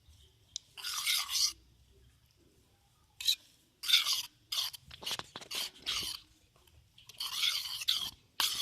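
Glue slime being stirred and mixed in a bowl as the activator solution thickens it: irregular sticky, squelching scrapes in short bursts, denser near the end.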